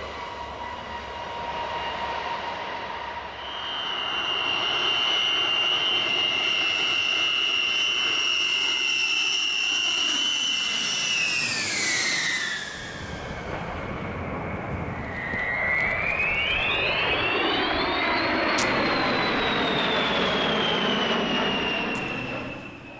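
Jet aircraft screeching in low passes. A high-pitched whine holds steady, then drops in pitch about eleven seconds in as the jet goes by; a second whine rises around fifteen seconds in and then slowly falls.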